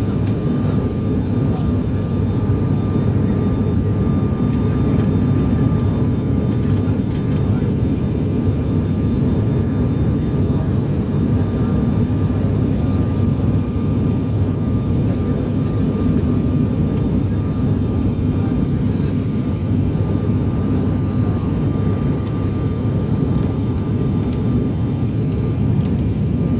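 Aeroplane cabin noise in flight: a steady, unchanging rumble of engines and airflow, with a faint steady whine above it.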